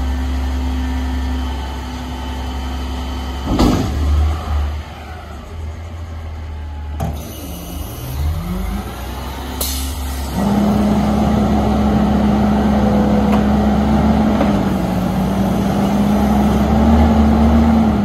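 Autocar ACX front-loader garbage truck running, with a sharp knock a few seconds in and a short hiss of air about ten seconds in. It then speeds up into a steady, loud hydraulic whine as its front arms lift the container high over the cab.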